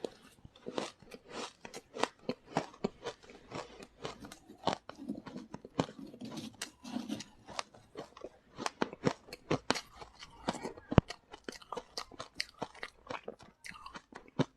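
Close-miked crunching and chewing of frozen freezer frost: dense, irregular crisp snaps, several a second.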